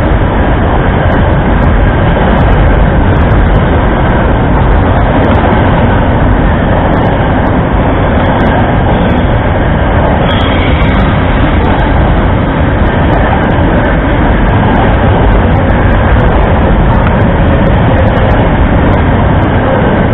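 Freight train of box wagons rolling past close by: a loud, steady rumble of wheels on the rails, with light irregular clicks throughout.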